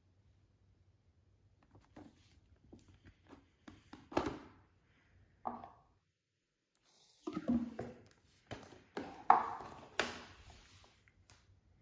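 A cardboard box set and plastic Blu-ray cases being handled: scattered taps, knocks and clacks, with the loudest cluster in the second half as the stack of cases is lifted out and set down on a marble tabletop.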